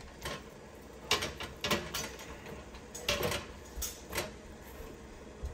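Handling sounds in a kitchen: a series of short rustles and taps, about seven in all, as a boiled bagel is pressed into a bowl of everything-bagel seasoning and set on crinkled parchment paper.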